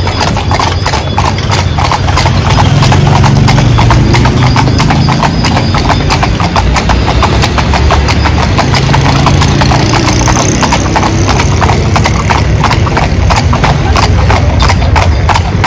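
Hooves of a pair of carriage horses pulling a calèche, clip-clopping steadily on the paved road in a dense, even run of strikes, over a low steady rumble.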